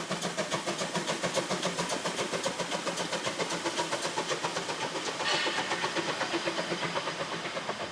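Narrow-gauge steam locomotive running with a quick, even beat of exhaust chuffs, about six a second. A short hiss of steam comes in about five seconds in.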